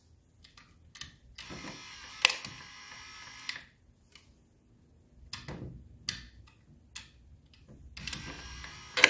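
Hirschmann power antenna motor running in short spells, its worm gear drawing the mast drive cable back into the housing, with clicks and ticks from the gears and the handling of the unit.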